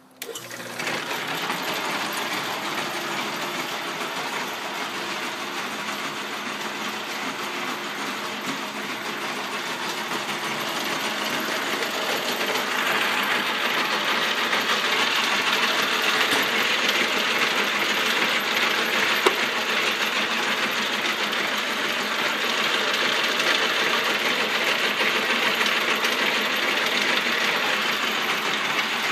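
Davis 14-inch metal lathe switched on and running under its electric motor, a steady mechanical whir and metallic clatter that starts abruptly and grows a little louder after about twelve seconds.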